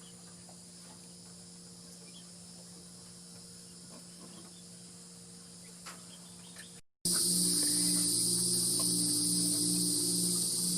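Insects chirring in a steady, high-pitched outdoor chorus over a low, steady hum. About seven seconds in the sound drops out for a moment, then comes back much louder.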